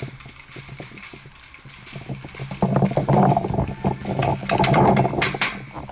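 Quick footsteps and gear clattering, growing louder. In the second half come rapid strings of sharp cracks from paintball markers firing.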